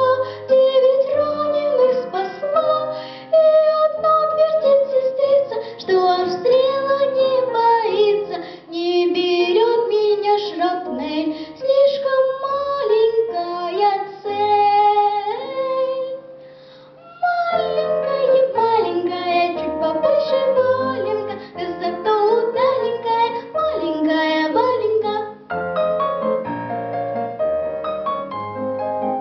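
A young girl singing a Russian song with an instrumental backing track, with a short break about 17 seconds in; near the end the backing track carries on without the voice.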